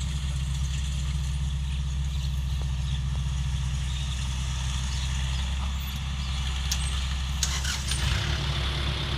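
Rice combine harvester's engine running steadily, a low drone, with a few sharp clicks and rattles near the end.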